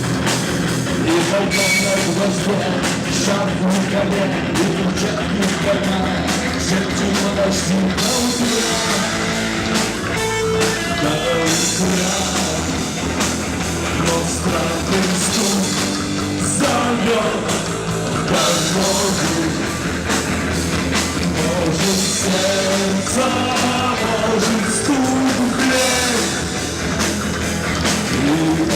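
Rock band playing live, with drum kit and some singing in the mix.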